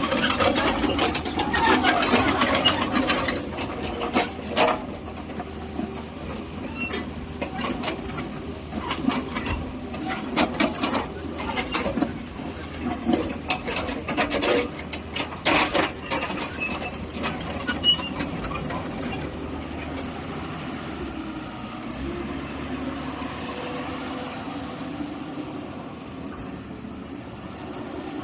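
Komatsu PC56MR-7 mini excavator's diesel engine running, with repeated metallic clanks and rattles through the first two-thirds, then a steadier run.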